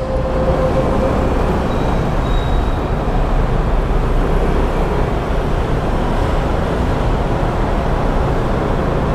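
Motor scooter running steadily under way as it climbs a spiral parking ramp, its engine mixed with road and wind noise at an even level.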